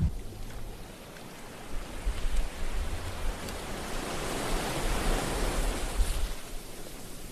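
Ocean surf breaking and washing up a sandy beach, a steady rush that swells to its loudest about five seconds in and then falls away.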